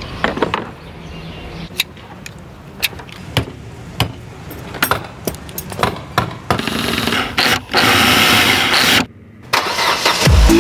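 Clicks, knocks and scrapes from hand tools and car fittings being worked. About six and a half seconds in, a loud steady noise takes over for about two seconds and cuts off suddenly.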